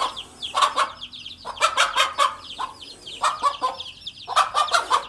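Many chicks peeping in a dense run of high, falling chirps, with an adult hen clucking over them in repeated bursts about a second apart. These are the hen's calls as she guards her brood from a cobra.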